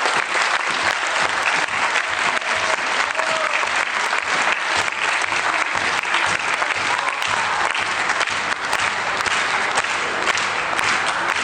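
Large audience applauding steadily, many hands clapping at once without a break.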